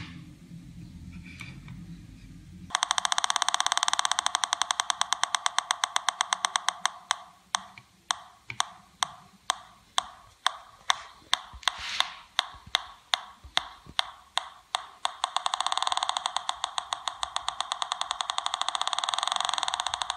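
Pulse-induction metal detector (Pi Polonez circuit) sounding through its speaker, with a steady train of clicks. A buzzing tone swells in over the clicks about three seconds in, fades out, and comes back strongly near the end: the detector signalling a metal target brought within range.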